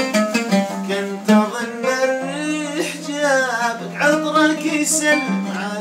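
An oud played in quick, even plucked strokes, with a man's voice holding a long, wavering sung note through the middle.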